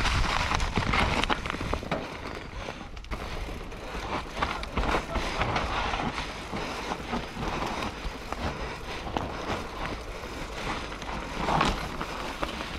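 Rockrider AM100S mountain bike rolling down a loose dirt trail: tyre noise over the ground with frequent short clicks and rattles as it goes over bumps.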